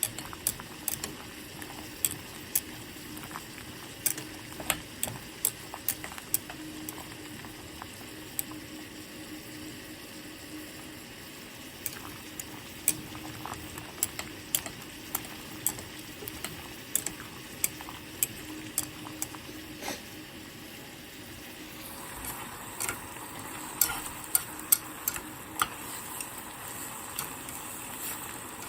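Food bubbling and sizzling in a pot on the stove while a cooking utensil stirs it, clicking against the pot at irregular intervals. Near the end the sizzle grows louder and brighter.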